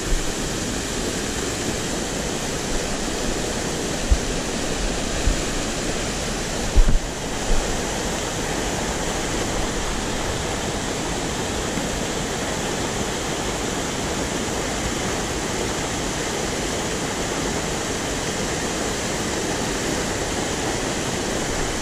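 Mountain torrent rushing over small rock cascades: a steady, even rush of water. A few short low thumps break in around four and seven seconds in.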